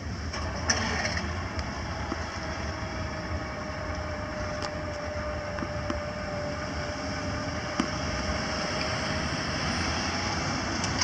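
Freight train rolling away past a grade crossing, a steady rumble. Near the end, road cars start across the tracks.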